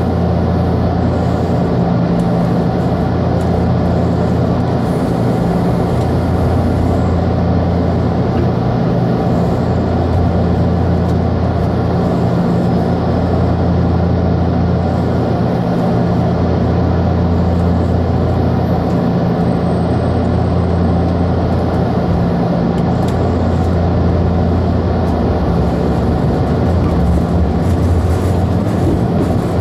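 Steady electrical hum and drone inside a JR Kyushu 883 series express car standing at a station, with a constant low hum and an overtone an octave above it.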